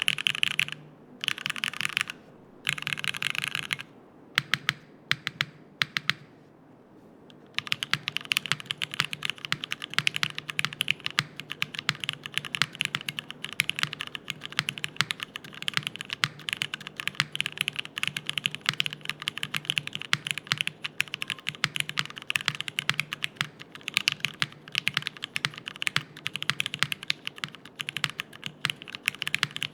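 Typing on a Slate Zero custom mechanical keyboard: a few short runs of key presses and scattered single keystrokes in the first seven or so seconds, then steady fast typing.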